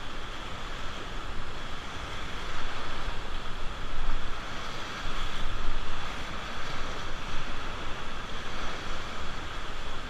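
Whitewater river rapids rushing and churning around an inflatable raft, with paddles dipping in. The water sounds as a dense, even rush that swells and eases, with wind buffeting the microphone.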